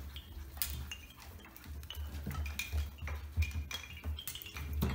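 Irregular clinking and clattering of small metal and hard objects hanging in a puppy adventure box as the puppies knock and mouth them, several clinks ringing briefly. A low steady hum sits underneath.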